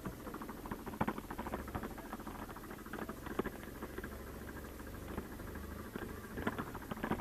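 Pine branches and brush scraping and crackling against the ATV and the helmet camera, with many small snaps and rustles that come in thicker bursts about a second in, around three seconds and near the end. Beneath them the quad's engine runs with a low steady hum.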